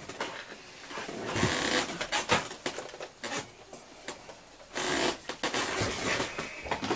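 Irregular clicks and rustling close to the microphone, with two longer noisy bursts about a second and five seconds in: handling noise.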